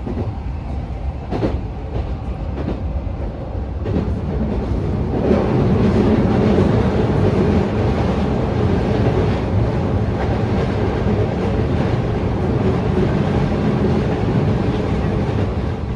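Keikyu New 1000 series electric train running on the rails, heard inside the passenger car: a few rail-joint clacks in the first seconds, then a louder, steady running rumble from about five seconds in.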